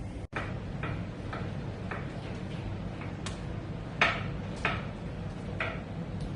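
A series of sharp ticks or clicks, roughly two a second and somewhat uneven, the loudest about four seconds in, over a steady low hum.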